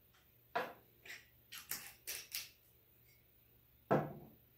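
Short clinks and knocks of a steel jigger and a glass rum bottle being handled and set down on a wooden table: a handful of sharp taps, with a louder knock about four seconds in as the bottle is put down.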